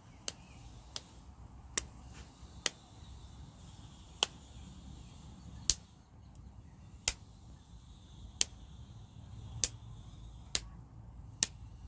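A child's hands patting or slapping together, about eleven sharp slaps at uneven spacing, roughly one a second.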